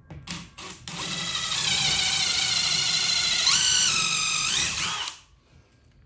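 Electric drill run on the trigger: two short blips, then a steady whine of about four seconds that steps up in pitch twice near the end before it stops.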